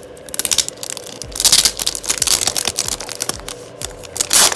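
Paper and plastic packaging crinkling and rustling as items are handled, with bursts of crackling, the loudest about a second and a half in and near the end.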